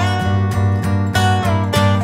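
Background music with a steady beat, about four notes a second.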